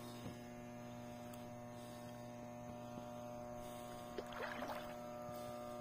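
A steady low hum made of several even tones, with no change in pitch or level; a faint short scratchy sound comes about four and a half seconds in.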